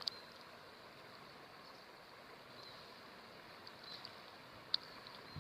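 Faint outdoor river ambience: a steady hiss of flowing water with a few short high chirps and two sharp ticks, one at the start and one near the end.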